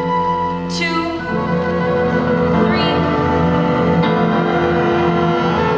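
Instrumental accompaniment of a stage musical playing the closing bars of a song, with held notes and chords.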